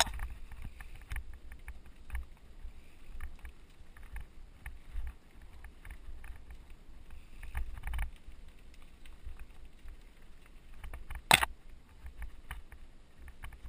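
Mountain bike riding fast down a dirt forest trail: low wind rumble on the microphone and steady rattle from the bike, broken by scattered knocks over bumps, with one sharp, loud knock about eleven seconds in.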